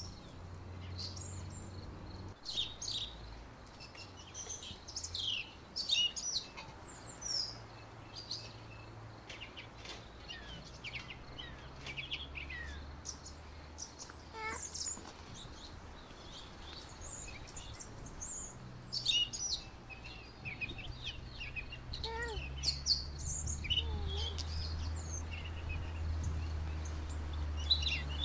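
Small songbirds chirping and calling in quick, repeated notes and short sweeps, over a low steady rumble that grows louder near the end.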